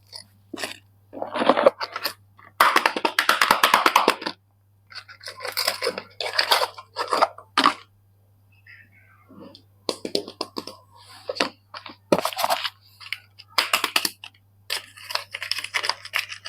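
Soap bars being unwrapped by hand: irregular bursts of crinkling, crackling packaging with short pauses between them.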